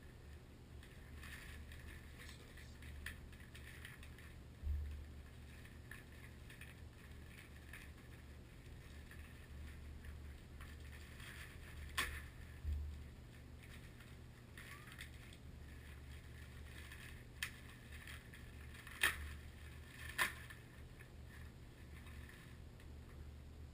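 Faint handling noises: rustling with scattered sharp clicks, three louder clicks in the second half and two dull thumps, over a low steady hum.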